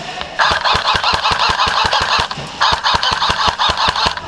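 Airsoft gun firing on full auto, recorded from a camera mounted on the gun: two long bursts of rapid, evenly spaced shots with a brief pause about two seconds in.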